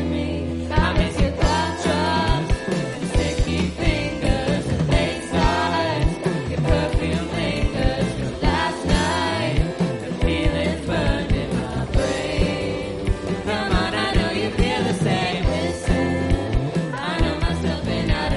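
A song with a steady drum beat under bending melodic lines and a choir-like vocal part with no clear words.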